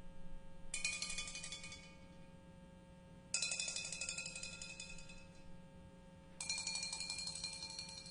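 Clay flowerpots struck with thin sticks: three bursts of quick strokes, about two and a half to three seconds apart, each on a different pot and ringing on with a high, clear pitch as it fades.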